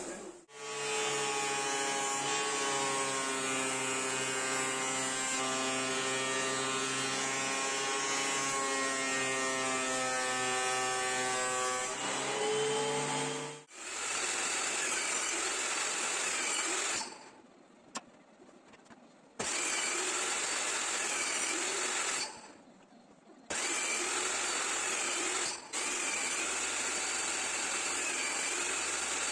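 Electric power tool running on wood: a steady motor hum for about the first thirteen seconds, then a noisier running sound that stops briefly twice before carrying on.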